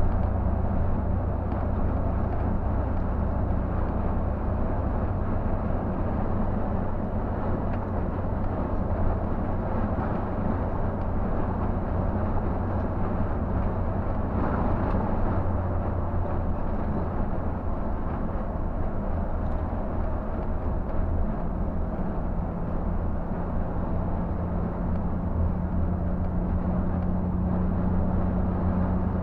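Scania K124 360 coach's rear-mounted six-cylinder diesel engine running steadily at highway cruising speed, heard from the driver's cab as a steady low drone mixed with tyre and road noise.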